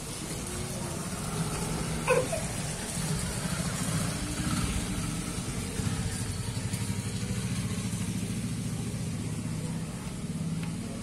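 An engine running steadily with a low, pulsing hum. A brief higher-pitched sound cuts in about two seconds in.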